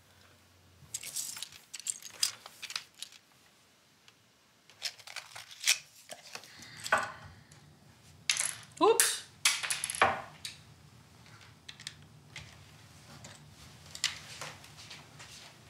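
Scattered clicks and clinks of small hard objects being handled, with a brief voice about nine seconds in. A low steady hum starts about six and a half seconds in.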